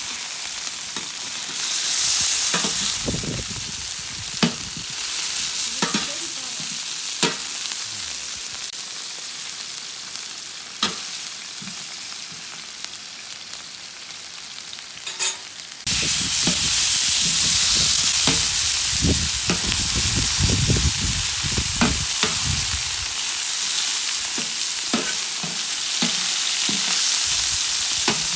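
Olive oil sizzling in a large paella pan over a wood fire, with scraping strokes of a utensil stirring and scattered sharp crackles. The sizzling jumps suddenly louder a little past halfway.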